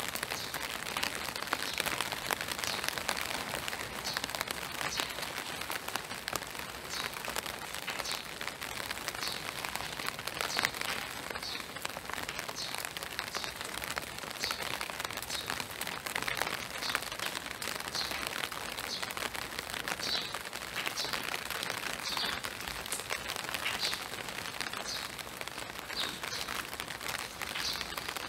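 Steady spring rain falling on woodland and a wet boardwalk, with scattered drips and taps. A small bird gives short high chirps every second or two throughout.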